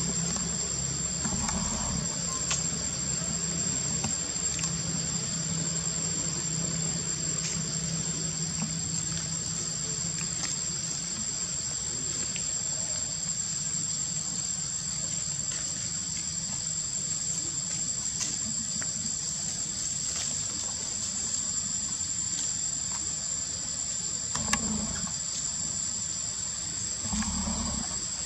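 A steady, high-pitched insect chorus buzzing without a break, with a constant ringing tone over a lower hiss.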